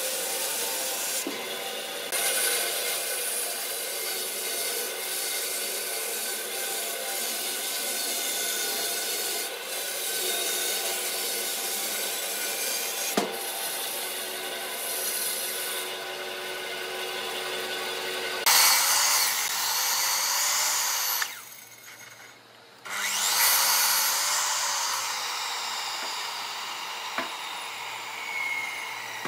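Band sawmill blade ripping lengthwise through a dry tree trunk, a steady sawing sound. About two-thirds of the way in the sound changes abruptly, cuts out for about a second, then the sawing resumes.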